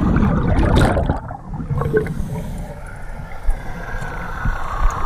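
Underwater audio of a scuba diver breathing out through the regulator, the bubbles gurgling loudest in the first second, with scattered clicks and knocks from the spear gear and the fish on the shaft.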